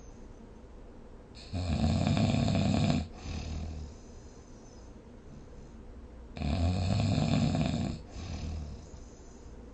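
A person snoring in sleep: two loud snores about five seconds apart, each lasting about a second and a half and followed by a brief, softer tail.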